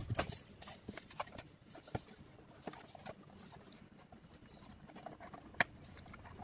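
Hands handling a small cardboard toy-car box and working its end flap open: scattered light taps and rustles of thin card, with one sharper click near the end.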